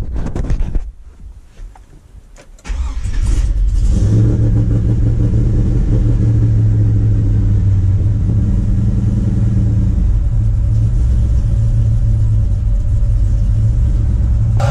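Chevrolet Silverado's swapped-in 6.0-litre LS V8 cranking on the starter, catching about three seconds in with a brief rev on the throttle, then running at a steady idle. The hard start is because the engine, with ported heads, bigger injectors and a bigger throttle body, has not yet been tuned.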